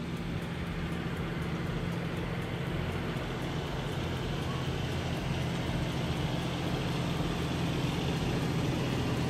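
Farm tractor engine running steadily, pulling a hay-ride wagon.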